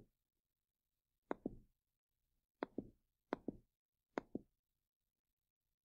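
Faint computer mouse clicks, about five of them, each a quick press-and-release double tick, spaced about a second apart as buttons on an on-screen calculator are clicked.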